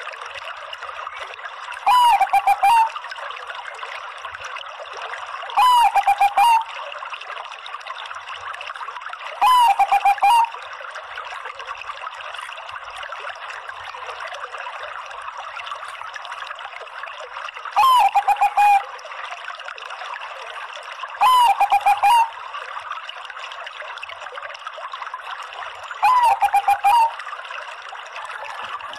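Zebra dove (perkutut Bangkok) cooing: seven short calls of quick falling coo notes, each about a second long, several seconds apart, with a long pause in the middle. A steady hiss like trickling water runs underneath.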